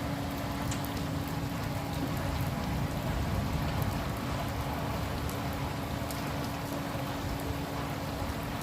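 Steady rain falling: an even rushing hiss with scattered drop ticks, and a faint steady low hum beneath it.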